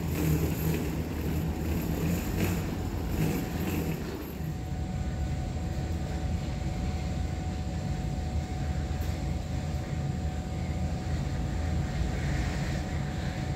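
Airport background noise: a low steady rumble with a few knocks, then after a sudden change about four seconds in, a steadier low rumble with a faint high steady tone over it.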